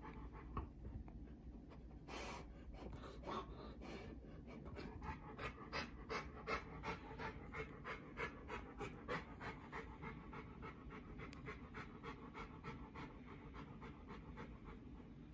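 A large adult dog panting quickly and evenly, loudest in the middle and trailing off toward the end.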